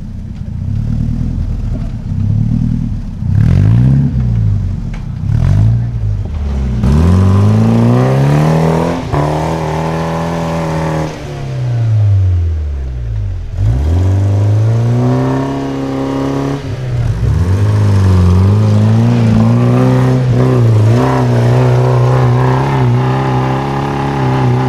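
Engine of a tube-frame trial 4x4 buggy revving up and down in repeated swells, then held at high, fairly steady revs from about halfway through, under load as the buggy claws up a steep dirt slope.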